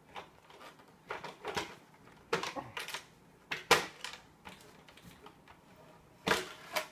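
Hard plastic knocks and clatter as the body is pulled off a large nitro RC truck. There are several separate clicks and knocks, the sharpest about halfway through and two more near the end.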